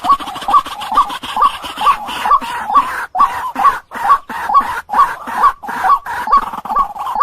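White-breasted waterhen calling: a short note repeated over and over, about twice a second.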